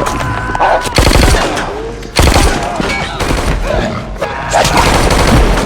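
Rapid bursts of gunfire in a movie gunfight, with clusters of quick shots about a second in and again around two seconds in.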